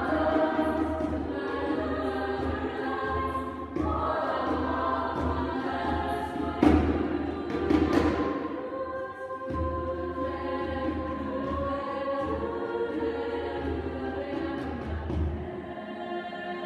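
Girls' school choir singing in several parts, with two sharp percussive hits a little over a second apart near the middle.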